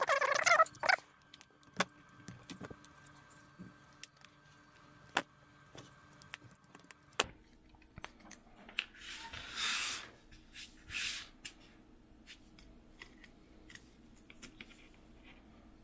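Small flush cutters snipping and prying at a GoPro's plastic back housing: scattered small clicks and snaps, with a short squeak at the very start and two brief scraping rasps about two thirds of the way through.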